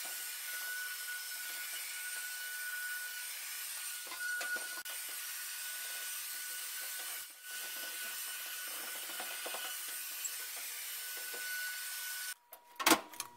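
Handheld vacuum running with a steady whine, sucking loose dirt out of a clothes-dryer drum and lint screen used as a fleece tumbler, with small rattles as debris goes up the nozzle. It switches off about twelve seconds in, followed by a couple of sharp knocks.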